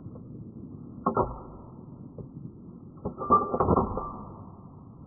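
A hunting rifle shot played back slowed down, so it comes out as low, dull booms over a steady low rumble: a sharp hit about a second in, then a longer and louder rumbling stretch around three to four seconds in.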